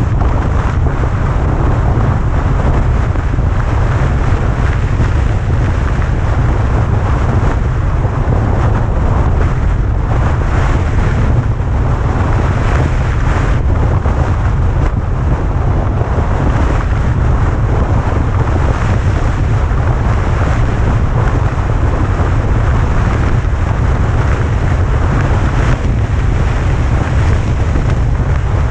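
Wind buffeting the camera's microphone on a moving vehicle: a loud, steady, low rumble that covers the road and engine sound.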